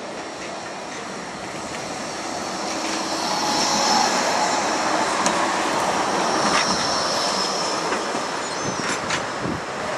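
Blackpool Bombardier Flexity 2 tram passing close by on the street track. Its running noise builds to a peak about four seconds in and then fades as it moves away, with a high wheel squeal over the middle of the pass.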